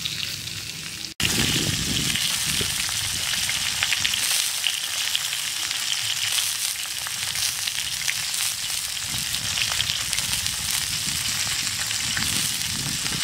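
Whole chicken sizzling on a hot metal tray over a wood fire, a steady hiss of fat and juices with many small pops. The sound cuts out for an instant about a second in, then comes back louder.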